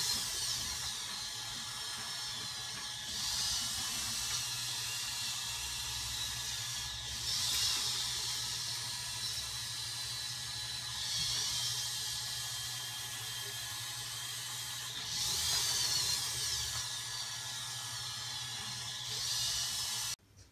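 Hobby servo motors in a 3D-printed InMoov humanoid robot whining as they drive its head and arms through test moves. The whine comes in bursts of a second or two about every four seconds, with the pitch bending as each move speeds up and slows. A steady hum runs underneath, and all of it cuts off just before the end.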